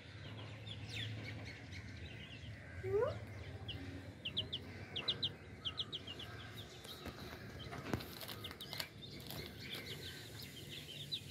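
Young chicks peeping: faint, short high cheeps, coming in quick runs of several notes.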